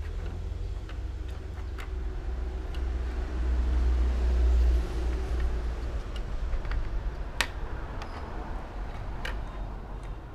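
A plastic ballpoint pen clicks and taps on a wooden desktop as a kitten bats it with its paws. There are a few sharp knocks, the clearest near the end, over a steady low rumble that swells about halfway through.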